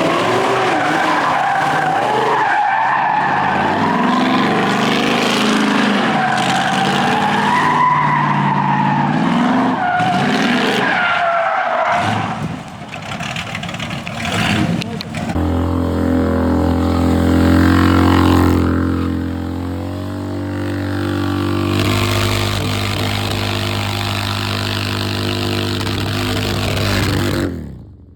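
Harley-Davidson motorcycle engine revving hard with tyres squealing and skidding, as in a burnout or drift. For the first dozen seconds a wavering high squeal rides over the engine; from about the middle the engine holds one steady note until the sound cuts off near the end.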